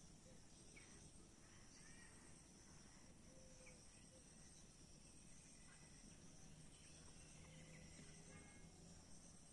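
Near silence, with a faint, steady high-pitched insect drone and a few soft bird chirps.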